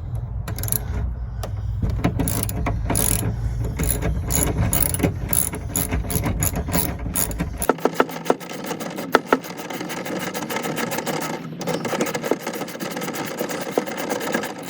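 Ratchet socket wrench clicking rapidly in long runs as a bolt is wound out of a door. Under the first half a low steady hum runs and then cuts off suddenly.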